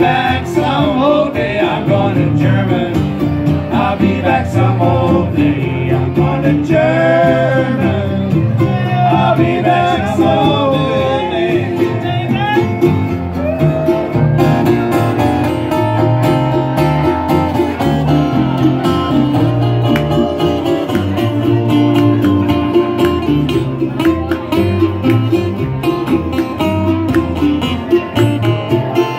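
Acoustic band playing an old-time jug-band tune live: strummed guitar and other fretted strings over a walking upright bass, with a wavering lead melody across roughly the first half.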